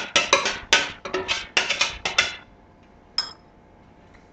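Quick run of knocks and rattles as chopped vegetables are tapped and shaken out of a chopper container into a glass bowl, stopping about two and a half seconds in, followed by a single click.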